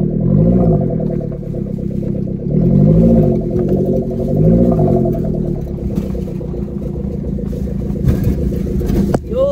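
Supercharged Suzuki Jimny engine heard from inside the cabin while driving off-road, the revs rising and falling several times over a steady drone.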